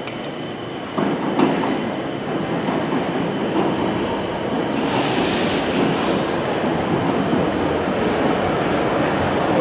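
London Underground track recording train, 1960 Stock driving motor cars with a 1973 Stock trailer, approaching through the tunnel into the station. Its rumble jumps up suddenly about a second in, then grows steadily louder, with a brief high hiss about five seconds in.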